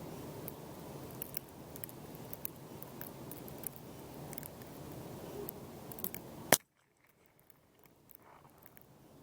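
A single shot from a CZ 455 Varmint .22 LR rifle, one sharp crack about two-thirds of the way in, over a steady low background with scattered faint clicks. The background drops away abruptly right after the shot.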